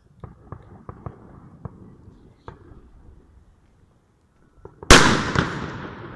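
Fireworks: a few scattered distant bangs and cracks in the first seconds, then one much louder blast near the end that fades out slowly. That loud blast is taken to be a firework stand exploding.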